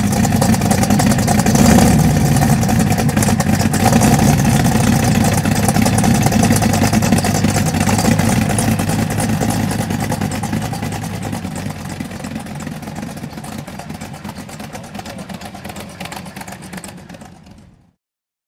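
A car engine running loudly and steadily with a low, pulsing rumble, fading gradually over the second half before cutting off suddenly near the end.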